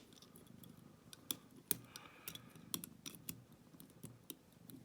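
Faint, irregular small metallic clicks and scrapes as wire picks work the levers inside an ERA five-lever padlock during picking.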